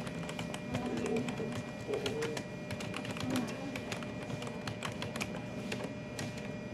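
Keys being typed on a keyboard: quick, irregular clicks, with a faint steady tone underneath.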